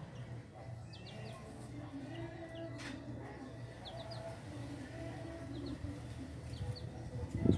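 Birds and farm animals: faint short high chirps and low wavering calls over a steady low hum, with a loud low rumble starting right at the end.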